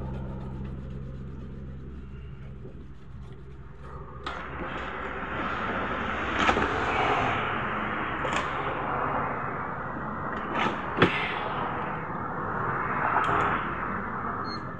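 A motor vehicle passing by: a steady low engine hum fades away at the start, then a broad wash of noise swells and fades twice. A few sharp clicks and knocks come from the circuit board and multimeter being handled.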